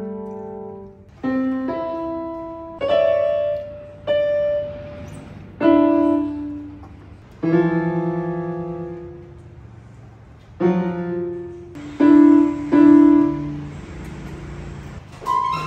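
Yamaha portable electronic keyboard played with a piano sound: about ten random clusters of keys pressed at irregular gaps of one to three seconds, each left to ring and fade, with no tune.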